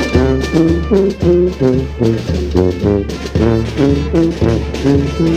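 Brass street band playing a cumbia tune: horns carry a bouncy melody of short, quick notes over steady drum hits.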